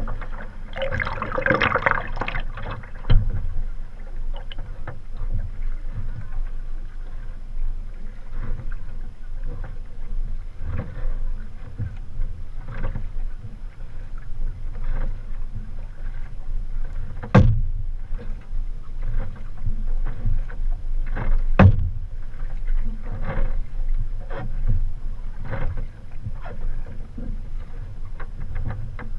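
Wing paddle blades splashing into the water in alternating forward kayak strokes, about one stroke a second, after a bigger splash at the start. Two sharp knocks stand out partway through.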